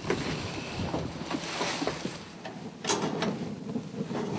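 A door being opened and entered: rustling and scraping noise, then a couple of sharp knocks about three seconds in.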